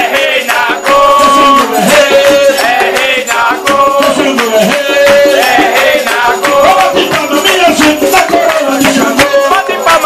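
Group of voices singing an Umbanda ponto (ritual chant) for Xangô, with a steady beat of hand percussion and shaken rattles.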